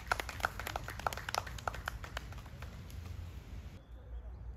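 Scattered hand clapping from a few people, applauding a good golf shot, thinning out after about three seconds.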